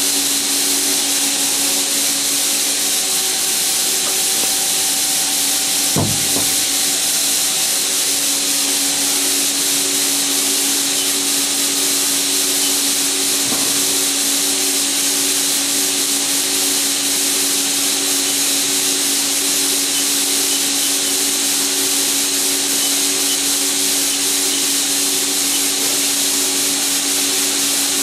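Haas SL-30T CNC lathe running: a loud, steady hiss over a steady machine hum of several tones, with a single knock about six seconds in.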